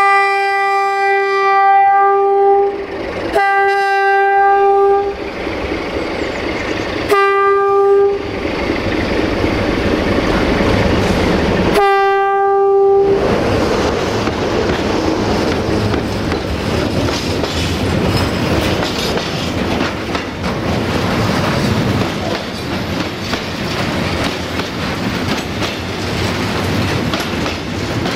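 Romanian 060-DA (LDE2100) diesel-electric freight locomotive sounding its horn in four blasts on one steady pitch: a long one, a second shorter one, then two short ones. From about 13 seconds in, the locomotive and its loaded tank wagons roll close past with steady wheel clatter on the rails.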